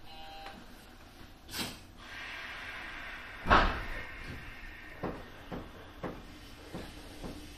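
JR West 201 series electric train standing at a station with its doors closing: a short beep, a knock, a hiss of air and then a heavy thud as the doors shut, followed by a string of sharp clicks about every half second.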